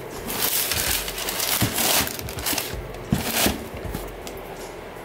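Tissue paper rustling and crinkling as it is handled in a sneaker box, with a few dull knocks about halfway through.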